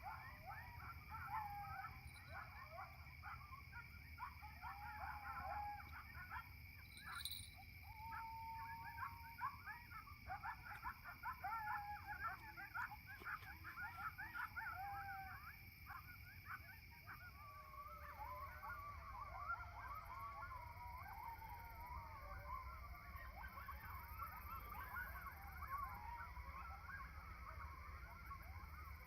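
A flock of geese honking faintly, many calls overlapping, the chorus growing denser about two-thirds of the way through.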